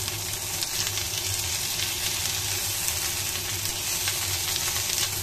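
Salmon steaks and chopped sweet green peppers sizzling and crackling steadily in a nonstick frying pan, the fatty fish frying in its own fat with no oil added.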